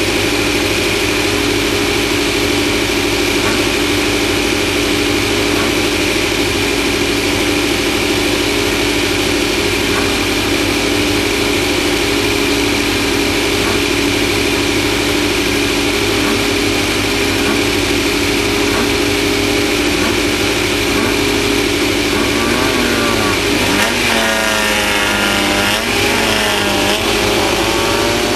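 Off-road race vehicle's engine running at a steady, held speed over a loud rush of road and wind noise. Near the end its pitch wavers up and down as the throttle changes.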